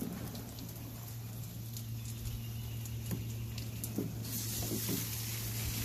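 Water dripping and pattering onto the deck, over a steady low hum. About four seconds in, a hiss comes in.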